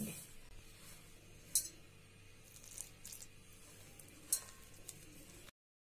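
Hands mixing flour and water into dough in a stainless-steel bowl, faint, with a few light clicks against the bowl. The sound cuts off suddenly near the end.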